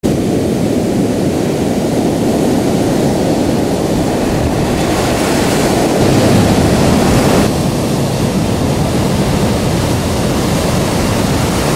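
Heavy surf breaking: a steady, loud rumbling wash of big waves and whitewater, with wind buffeting the microphone. The sound brightens for a couple of seconds and then shifts abruptly about seven and a half seconds in.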